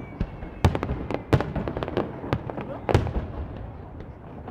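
Fireworks barrage (starmine) going off: an irregular run of sharp shell bursts, with loud bangs about a second in, about a second and a half in and near three seconds in, and smaller pops between them.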